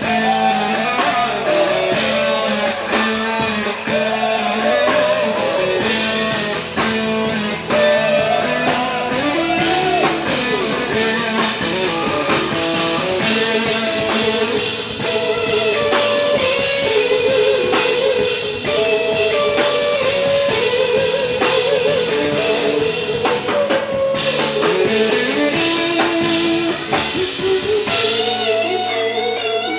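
Live band playing an instrumental passage: an electric guitar lead of held, bending notes with vibrato over drums and bass. Near the end the bass and drums drop out, leaving the guitar's sustained notes.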